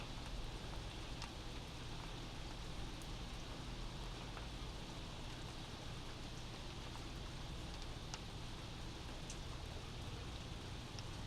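Steady rain heard from indoors: an even wash with a few separate drop ticks.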